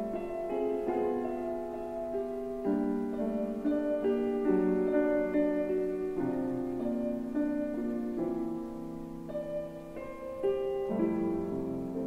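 Slow piano music, held notes and chords changing about once a second.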